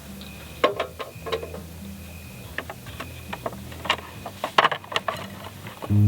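A series of short light clicks and knocks, about eight of them at uneven intervals, over a low steady hum.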